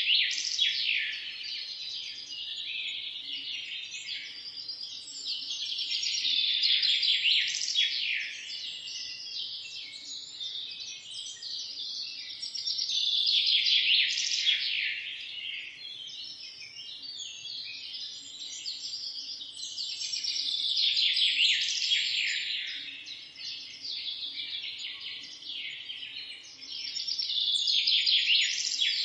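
Morning chorus of many small songbirds chirping together in a dense, overlapping tangle of calls, swelling louder about every seven seconds.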